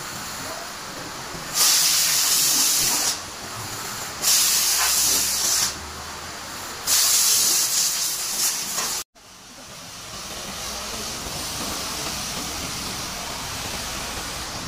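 Car-wash pressure washer spraying: three bursts of hiss, each about a second and a half long, then after a sudden break a steady hissing spray as the jet rinses foam off a car.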